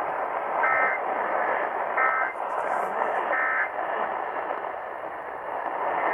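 Emergency Alert System end-of-message code: three short warbling digital data bursts about a second and a half apart, the signal that the alert has ended, heard over the hiss of an AM radio broadcast.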